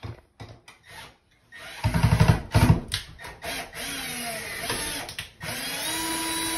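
Cordless drill driving screws into a wooden shiplap ceiling to mount a light fixture. Light clicks come first. About a second and a half in the motor starts, running in short spurts with its whine changing pitch, then holds a steady whine near the end.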